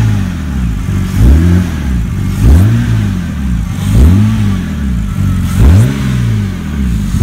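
BMW 328i's 3.0-litre straight-six, breathing through a newly fitted open cone air filter, being revved in quick blips: the engine note rises and falls again about every second and a half.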